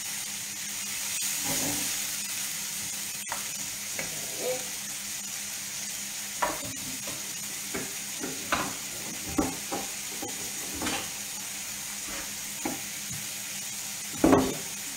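Zucchini and salmon frying in a pan, a steady sizzle throughout, with scattered short knocks and clatters of kitchen utensils, the loudest knock near the end.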